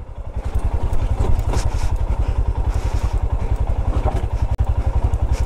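Royal Enfield Himalayan's single-cylinder engine running at low revs with a steady, rapid beat as the bike creeps over loose rocks. There are a few light knocks a second and a half in.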